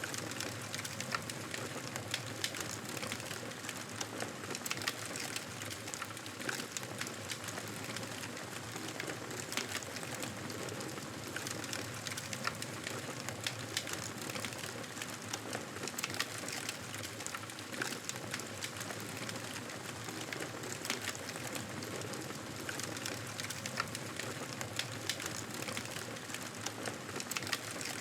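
Wood fire crackling in a fireplace: a steady hiss with frequent small, sharp pops and snaps throughout.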